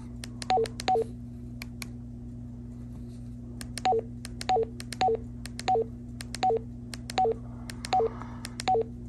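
Baofeng BF-18H handheld radio's keypad beeps as its menu arrow key is pressed repeatedly: each press gives a short two-note beep, higher then lower, with faint button clicks. Two beeps come near the start, then a steady run of about eight, roughly one every two-thirds of a second, from about four seconds in.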